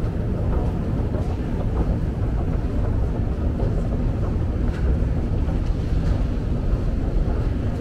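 Steady low rumble of a descending metro escalator and the station around it, with a few faint clicks.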